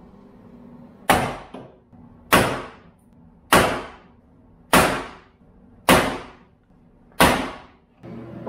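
Sledgehammer striking a wooden block held against a 2006 Subaru Impreza's front-end sheet metal: six heavy blows about a second and a quarter apart, hammering the misaligned body structure into place.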